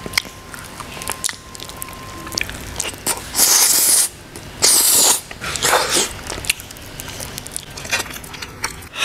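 Close-miked mouth sounds of eating soft durian flesh by hand: wet chewing, smacking and small clicks, with two louder noisy slurps about three and a half and five seconds in.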